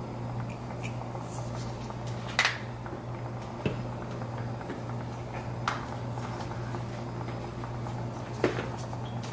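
Broth simmering around whole butterfish in a stainless steel skillet, with a steady low hum underneath and four sharp pops or ticks spread through.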